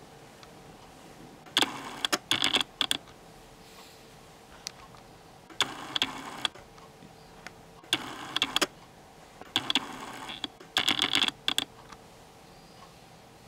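Close rustling and crackling of a tissue being rubbed and handled, in five short bursts of quick clicks.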